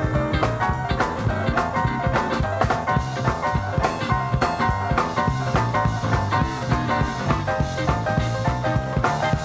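Upbeat instrumental swing-style music with a drum kit keeping a steady beat.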